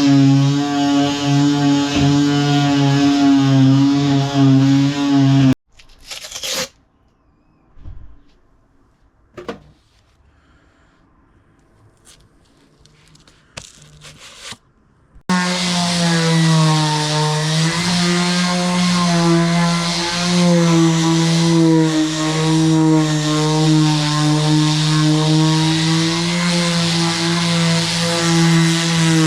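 An electric power tool running steadily on wood, then switched off about five and a half seconds in. A few knocks and clicks follow during a quiet spell. The tool starts again about fifteen seconds in, its pitch wavering slightly as it works.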